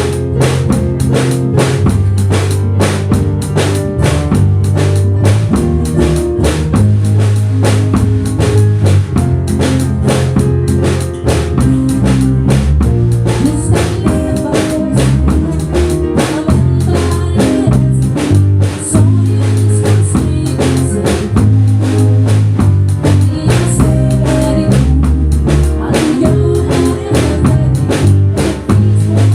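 Music led by a drum kit with a steady beat, kick and snare or rimshot hits over a bass line that moves from note to note.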